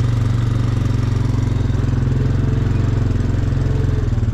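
A tractor engine running steadily with a low, evenly pulsing rumble.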